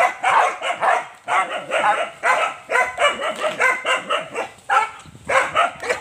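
Young dogs barking rapidly and excitedly, about three barks a second with a short pause near the end, baying at a small animal tied to a tree as they are trained to hunt.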